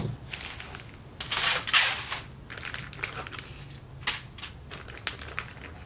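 Plastic vacuum-seal bag and aluminium foil crinkling and rustling as wet marinated beef ribs are pulled from the bag and laid in a foil-lined pan: irregular crackles and clicks, loudest about a second and a half in.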